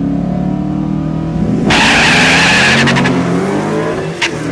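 Two Ford V8s, a 2012 Mustang GT's 5.0 Coyote and an SVT Lightning's supercharged 5.4, idle and rev at the start line. About a second and a half in they launch with a sudden loud rush of noise, and then the engines rise in pitch as they pull away down the strip.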